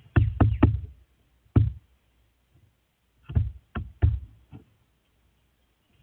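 A crow pecking at a wooden deck railing right by the microphone: sharp knocks, three in quick succession, one more a second later, then a cluster of four or five about halfway through.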